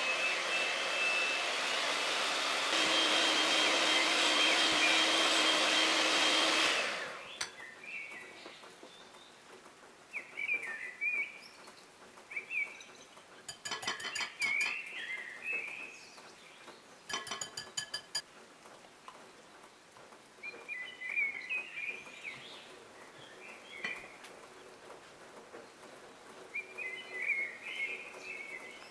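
Electric hand mixer running, its wire beaters whipping egg whites in a glass bowl, then cutting off about seven seconds in. After that, birds chirp on and off, and a hand whisk clicks against a glass bowl in two short spells midway.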